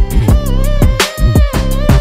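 Background music with a hip-hop style beat: deep bass notes that slide down in pitch under quick, regular high ticks and held pitched tones.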